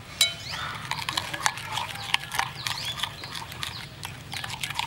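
Metal spoon stirring and scraping a raw egg yolk into mashed cow brain in a ceramic bowl, with many sharp clicks of spoon against bowl. Short high rising-and-falling animal calls sound in the background.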